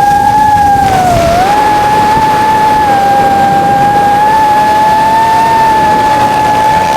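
FPV quadcopter's electric motors and propellers giving a steady high-pitched whine, which dips briefly in pitch about a second in and then holds level as the drone flies.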